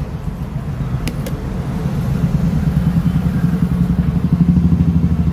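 A motor vehicle engine running with a low pulsing hum that grows louder in the second half, with a couple of light clicks about a second in.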